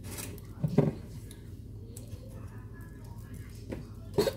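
Two short bursts of a person's voice, one a little under a second in and another starting near the end, with a few faint clicks between, over a steady low hum.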